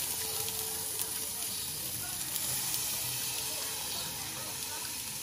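Steaks and asparagus sizzling on a portable gas grill: a steady hiss with a few faint crackles.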